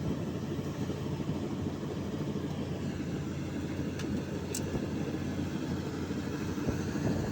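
Combine harvester's diesel engine running steadily while harvesting paddy, with a brief faint tick about four and a half seconds in.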